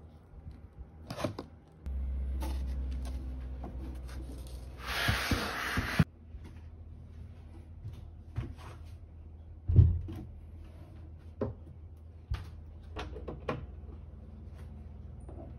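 Handling sounds from unpacking and setting up a Jackery 1000 portable power station, over a low steady hum: scattered small clicks and knocks, a rustle around five seconds in, and a heavier thud around ten seconds in. Near the end come several small clicks as the charging cable is plugged into the unit.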